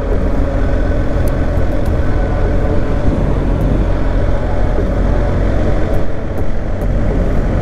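BMW GS Adventure motorcycle running along at a steady pace, its engine note under a constant rush of wind and road noise.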